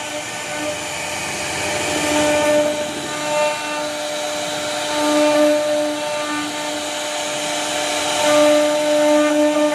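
CNC router spindle running and cutting into wood: a steady pitched whine over the noise of the cut, which swells louder every few seconds as the bit works along the carving.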